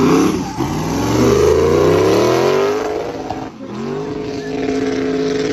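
Twin-turbo LS3 V8 in a Porsche Panamera drift car, revving hard through a drift. The engine note climbs for about two seconds, dips briefly about three and a half seconds in, then holds steady at high revs.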